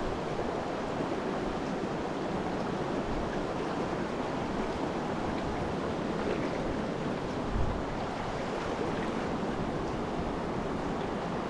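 River water running steadily, an even rushing noise, with one brief low bump about seven and a half seconds in.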